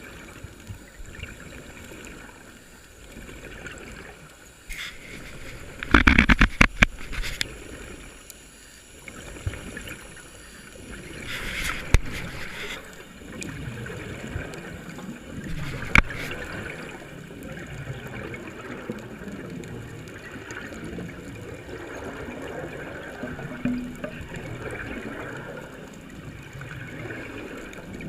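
Water gurgling and sloshing, with a quick cluster of sharp clicks about six seconds in and single sharp clicks later on.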